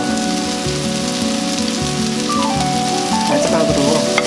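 Rice cakes, beef and vegetables sizzling in a hot frying pan as soy sauce is spooned in and stirred with a wooden spoon, under background music with held notes.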